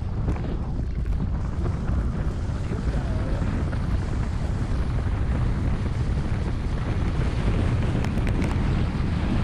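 Wind rushing over a downhill skier's action-camera microphone, a steady low rumble that grows a little louder as the skier gathers speed.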